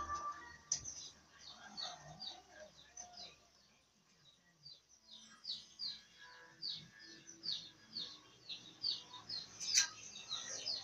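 A small bird chirping over and over in short, high, falling notes, about two to three a second. There is a brief lull, then the chirping grows busier in the second half.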